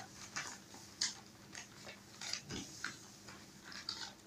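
Faint rustling and crisp creasing of sheets of coloured cover paper being folded by hand into paper planes, in scattered short crackles.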